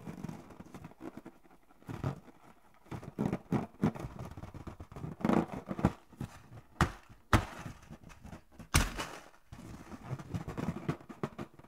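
Hands squeezing and rubbing a filled rubber balloon: irregular squeaks and rubbery rustles of the latex under the fingers, with three sharp clicks in the second half.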